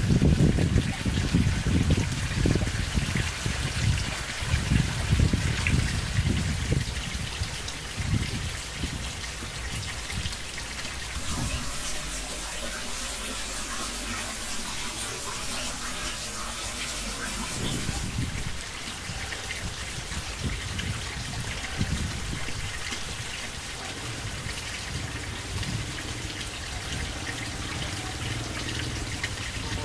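Water trickling and splashing steadily from a small cement garden aquarium's waterfall. Irregular low thumps and rumbles come and go during the first third and again about two-thirds of the way through.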